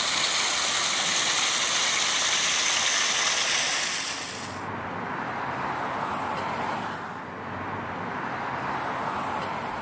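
Steady outdoor background rush with no music or voice. About four and a half seconds in, it turns duller and a little quieter as its hiss drops away.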